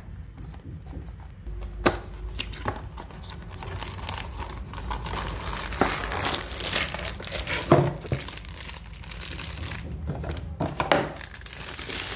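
Clear plastic wrap crinkling and rustling as a stainless steel water bottle in its wrapper is handled and slid out of its cardboard box, with a few sharp knocks and clicks along the way, the loudest about two-thirds of the way through.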